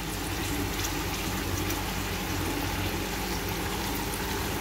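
Chicken pieces and yogurt cooking in a pot, a steady bubbling sizzle.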